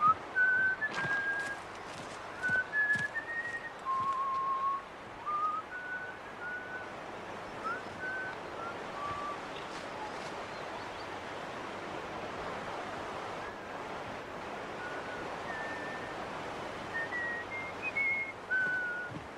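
A person whistling a slow tune, clear single notes stepping up and down, with pauses between phrases. Underneath is a steady outdoor hiss, and a few sharp clicks come in the first couple of seconds.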